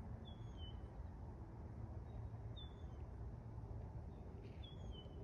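A bird calling three times, about two seconds apart: each call a short, high whistle that slides down in pitch. A low, steady rumble runs underneath.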